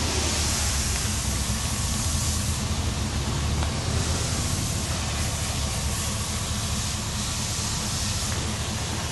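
The truck's 6.0-litre V8 idling steadily, with an even hiss over it.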